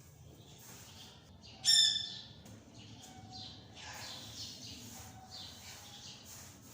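Chicks peeping in a brooder: many short, high chirps, with one much louder peep close by about two seconds in.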